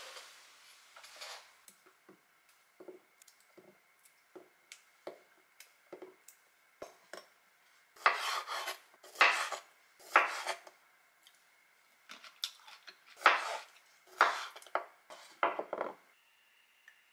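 Ceramic-coated kitchen knife halving green grapes on a wooden cutting board. First come light ticks of the blade on the board, about one a second, then a run of louder, sharper cuts, each ending in a knock on the board.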